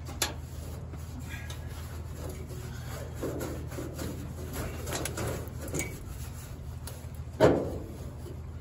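A rag in a gloved hand wiping and rubbing the bare, sanded steel underside of a 1960 Cadillac hood in irregular scuffing strokes. There is a sharp tap just after the start and a louder knock near the end, over a steady low hum.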